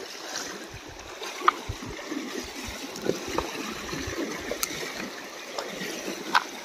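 Stream water running and splashing, with scattered sharp clicks and knocks; the loudest click comes about a second and a half in, and another near the end.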